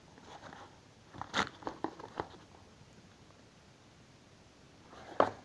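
A few short clicks and light knocks of objects being handled: a quick cluster about a second in and one sharper knock near the end.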